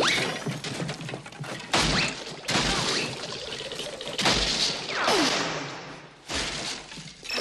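Horror-film sound effects and score: a string of sudden whooshing hits, each with a deep boom, and a tone that swoops downward about two-thirds of the way through.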